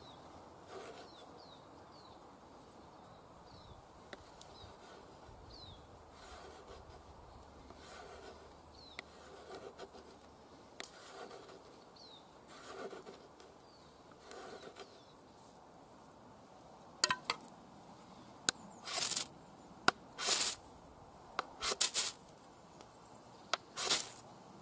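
A knife blade scraping: faint, soft strokes at first, then from about two-thirds of the way in a string of loud, harsh rasping scrapes, some very short and some about half a second long.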